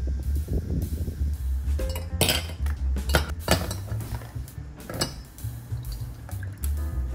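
A few sharp clinks of metal tongs, ice cubes and glass, then juice poured over ice in a glass jug, with background music underneath.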